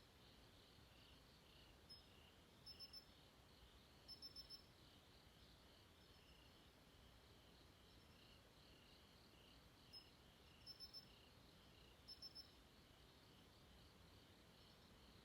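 Faint night chorus of crickets: a steady, pulsing high trill. Twice, a nearer insect breaks in with short runs of three or four quick, higher chirps.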